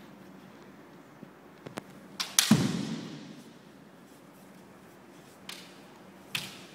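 Bamboo shinai clacking together in kendo sparring: a few light taps, then a loud clash of strikes about two and a half seconds in that echoes through the hall, and two more sharp hits near the end.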